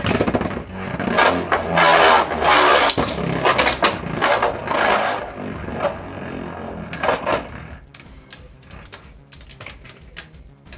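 Plastic-and-metal spinning tops clashing in a plastic Beyblade stadium, with loud dense clattering and scraping for about seven seconds, then a run of sharp separate clicks as the tops knock together more slowly.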